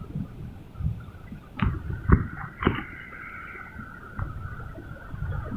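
Low rumble of heavy surf breaking, with three sharp knocks about a second and a half to three seconds in and a faint steady whine underneath.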